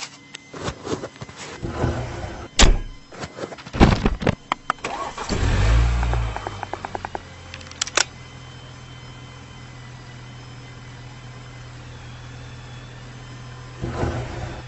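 Clicks and knocks, then about five seconds in a car engine cranks briefly, catches and settles into a steady idle, with a sharp click a little later.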